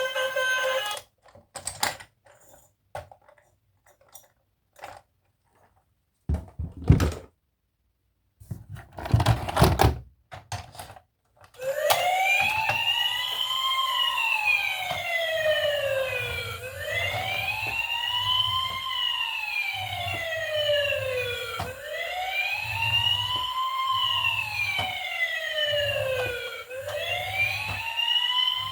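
A few scattered clicks and knocks, then about twelve seconds in an electronic siren from a toy emergency vehicle starts wailing, rising slowly and falling about once every five seconds and repeating steadily.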